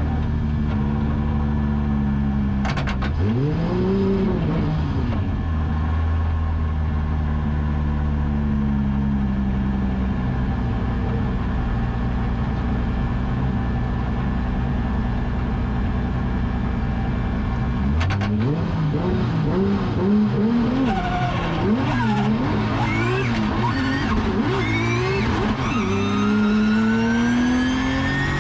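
Drift car engine running at steady revs, with one quick rise and fall about three seconds in. About two-thirds of the way through it starts revving rapidly up and down, then ends with a long, steady climb in revs as it accelerates.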